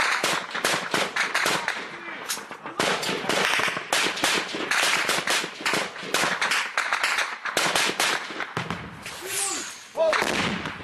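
Sustained small-arms gunfire: many shots in quick succession, with overlapping rapid bursts.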